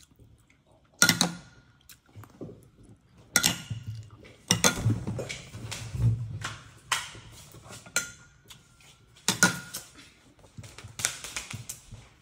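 Scattered sharp clinks and knocks of a metal spoon and tableware against a ceramic bowl and table, with dull bumps and handling rumble as someone gets up and moves away.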